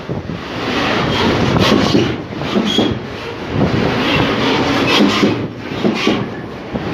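Container freight train rolling past close by: a steady rumble of wagon wheels on the rails, broken by repeated clattering knocks as the wheelsets run over rail joints.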